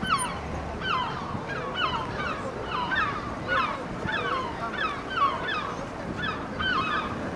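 Gulls calling over and over, a run of short, yelping calls about two a second, some overlapping, over a steady outdoor background hum.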